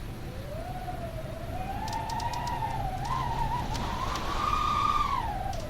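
Howling wind: a wavering, whistling howl that slowly rises in pitch and grows louder toward the last second, then drops away near the end, over a steady low rumble of gusting air.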